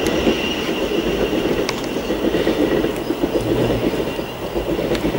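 Thameslink Class 700 electric multiple unit rolling away along the track: a steady rumble of wheels on rail, with a faint high squeal early on and a few sharp clicks, the clearest about two seconds in.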